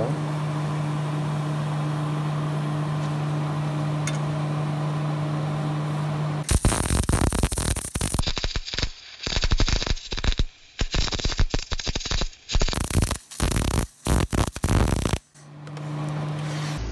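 A steady electrical hum, then an arc welder crackling in several short bursts with brief pauses between them, as a nut is welded onto a stuck knife bolt on a steel mixer knife to free it. The hum returns near the end.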